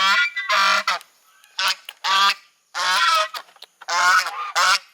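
Geese honking: a rapid series of about seven harsh, nasal calls from several birds, with short gaps between them.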